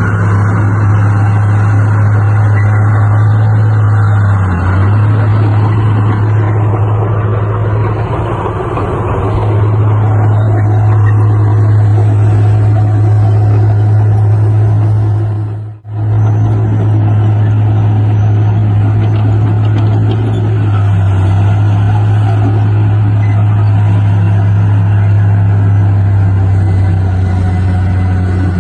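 Heavy diesel engine of earthmoving machinery running steadily with a deep, even hum, its pitch sagging briefly a couple of times as the load changes. The sound cuts out for an instant just past halfway.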